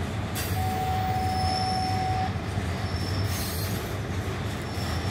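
Norfolk Southern rail train's loaded rail-rack flatcars rolling past, a steady rumble of wheels on the rails. A single steady wheel squeal rings out about half a second in and stops after nearly two seconds.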